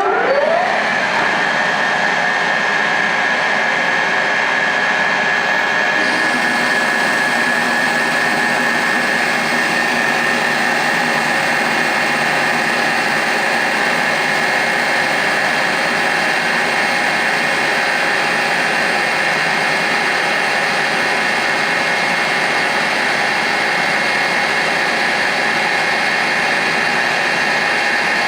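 DeVlieg 3H-48 Spiramatic CNC jig mill running: a machine whine that rises in pitch at the start as the drive spins up, then holds steady at speed with several fixed tones.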